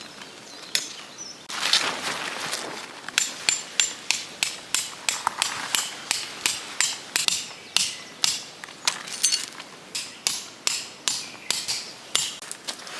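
Tent pegs being hammered into the ground with a mallet: a steady run of sharp strikes, about two or three a second, starting about three seconds in.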